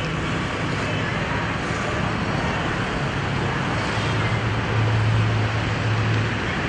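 Steady background traffic noise with a low engine hum that grows louder about four seconds in and eases near the end.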